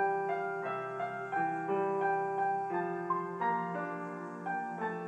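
Background piano music: a gentle melody of held notes changing about every half second.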